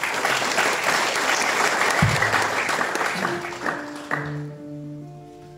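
Audience applauding, dying away about four seconds in as an instrument begins playing held notes, the introduction to a song. A low thump sounds about two seconds in.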